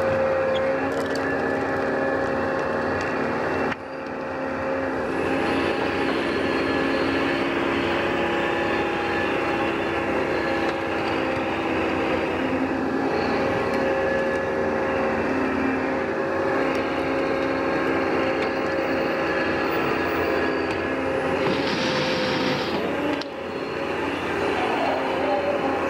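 Tracked forestry harvester running steadily, its engine and hydraulics giving a loud drone with a steady whine. The sound shifts abruptly about four seconds in, and a brief, harsher burst comes near the end.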